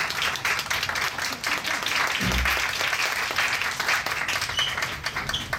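Audience applauding, with one dull low thump about two seconds in.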